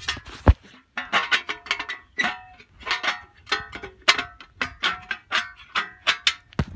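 Metal parts of an Atwood 8525 RV furnace's gas valve and burner assembly clinking and rattling as they are worked loose by hand: an irregular run of sharp clinks, each with a short metallic ring, two or three a second, with a low thump about half a second in.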